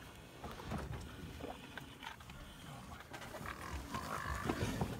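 Faint low growls and grunts from lions grappling with an African buffalo as they try to pull it down.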